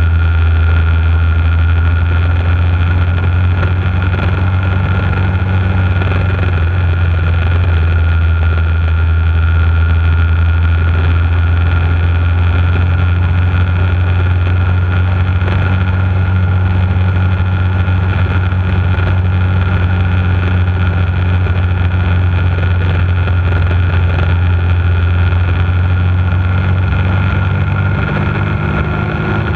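Bullit Hunt 125 cc motorcycle's single-cylinder engine running steadily at cruising speed, picked up close by a camera mounted on the front of the bike. Near the end the engine note eases off and changes pitch.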